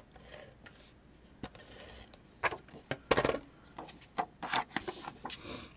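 Cardstock being handled and shuffled on a craft mat: paper sliding and rustling, with several light taps and knocks, the loudest a little past halfway.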